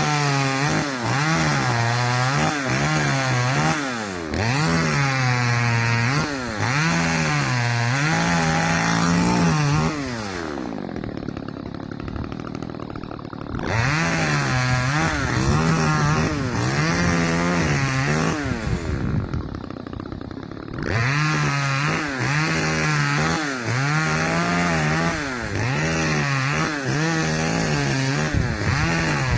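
Two-stroke chainsaw cutting wood at high revs, its pitch wavering up and down as the chain loads in the cut. It drops back to idle twice, about ten seconds in and again near twenty seconds, before revving up again.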